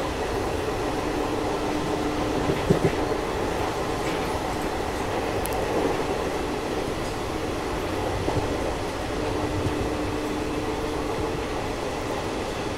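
Passenger train running at speed, heard from on board: a steady rumble of wheels on rails with rushing wind. A couple of sharp clacks come about three seconds in, another near eight seconds, and a faint steady hum comes and goes twice.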